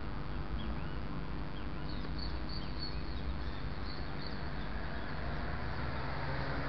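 Steady hiss and rumble of traffic on a wet road, with a few short high bird chirps in the first half.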